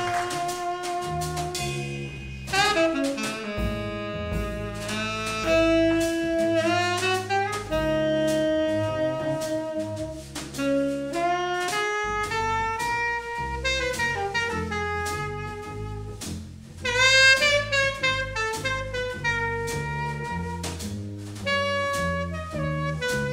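Jazz trio: tenor saxophone playing the melody in long held notes with smooth slides between pitches, over plucked upright double bass and lightly played drums with cymbal strokes. The saxophone swells louder about two-thirds of the way through.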